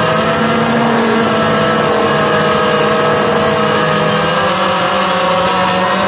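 FPV quadcopter's brushless motors and propellers whining in flight, the pitch sagging and rising gently with the throttle over a steady rushing hiss.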